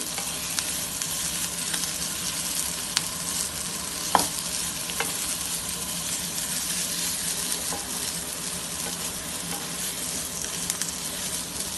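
Diced boiled potatoes with spices sizzling steadily in a frying pan as the sabzi finishes cooking, with a few light clicks near the middle.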